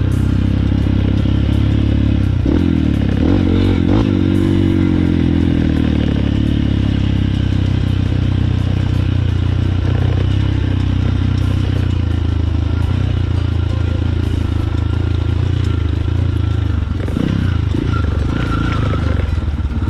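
Small trail motorcycle engine running under way, its note rising and falling with the throttle a few seconds in, with scattered knocks from the bike over rough ground.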